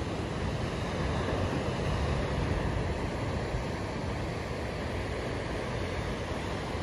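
Steady rush of ocean surf breaking and washing over rocks, with wind rumbling on the microphone.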